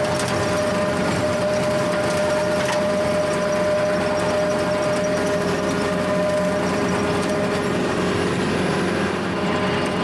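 Kubota L4701 diesel tractor running steadily with a Countyline brush hog (rotary cutter) turning behind it, cutting tall grass. A steady high whine runs through it, which the owner puts down to the cutter's worn bearings.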